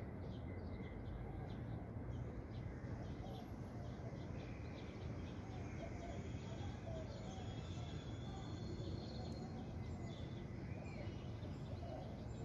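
Outdoor ambience: a steady low background rumble with small birds chirping faintly on and off.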